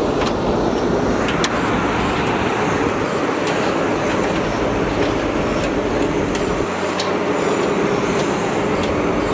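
Steady machinery drone inside a ship's vehicle deck, with a few light clicks of footsteps on metal stairs.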